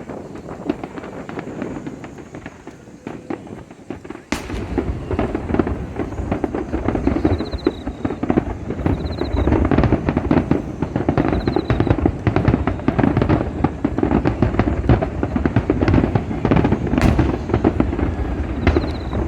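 Fireworks display: shells bursting in a dense run of bangs and crackling, growing much louder and fuller about four seconds in after a sharp report.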